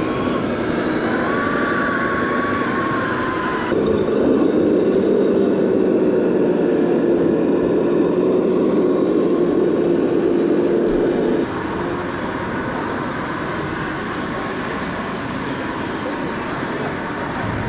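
Small electric motors of radio-controlled model trucks and construction machines whining steadily over a noisy background. The pitch wavers slightly and the sound jumps in level twice where the clips change.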